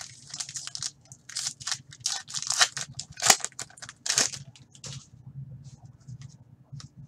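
Foil Fleer Ultra hockey card pack torn open by hand: a quick run of tearing and crinkling rustles of the wrapper over the first five seconds or so, then a few light ticks as the cards are handled.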